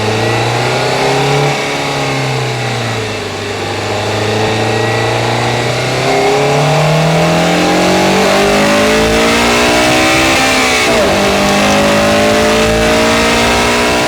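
2007 Honda Civic Si's 2.0-litre i-VTEC four-cylinder engine revving under acceleration. The pitch rises and falls, holds for a few seconds, then climbs steadily. It dips sharply once about eleven seconds in, then climbs again.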